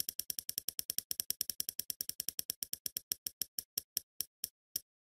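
Spinning prize-wheel clicker sound effect: sharp ticks at about ten a second that slow steadily to two or three a second as the wheel winds down.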